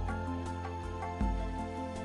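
Slow instrumental background music with sustained tones, and a deep low note sounding about a second in.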